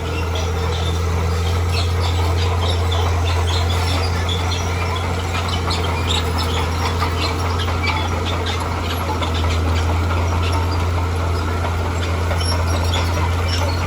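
Heavy earthmoving machine's diesel engine running steadily under load, with many short metallic clanks and scrapes over it.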